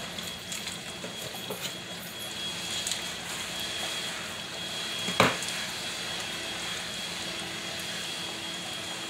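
Kitchen handling sounds as a stick of butter is unwrapped and cut over a pot: light clicks and rustles over a steady hiss, with one sharp knock about five seconds in.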